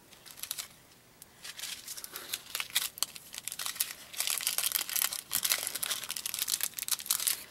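Small plastic packets of diamond painting drills crinkling as they are handled; after about a second of quiet, a dense, irregular crinkling.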